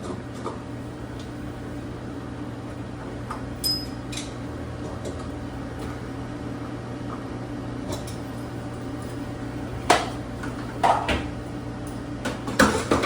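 A steady low machine hum, with a few sharp clanks and knocks from handling plumbing fittings, clustered near the end.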